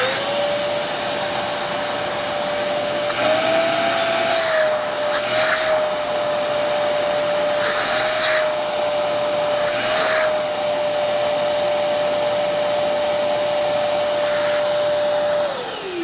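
Stealth 5-gallon, 5.5 peak HP wet/dry shop vacuum switched on, its motor running with a steady whine. Four times the whine rises briefly with a burst of hissing as the hose is blocked by hand, unloading the motor. Near the end it is switched off and the whine falls away as the motor spins down.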